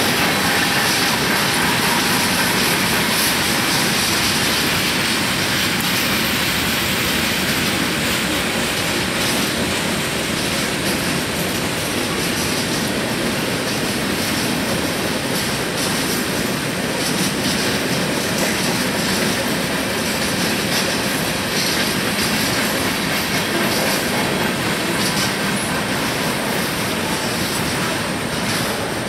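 Freight cars of a long train rolling past: a steady noise of steel wheels on the rails, with faint clicking as the wheels cross the rail joints.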